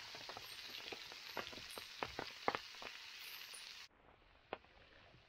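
Hardwood campfire burning down to coals, hissing steadily with many sharp crackles and pops. About four seconds in, the hiss cuts off abruptly, leaving only a few faint pops.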